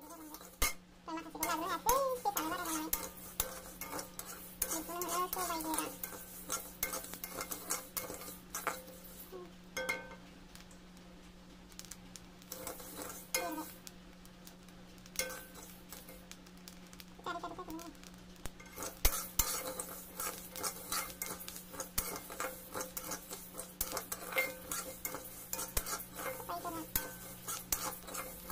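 Metal spatula scraping and stirring dry grains of boiled rice as they roast in a metal wok: rapid scrapes with the rattle and click of grains against the pan, over a steady low hum. The stirring thins out for a while in the middle and is busiest in the last third.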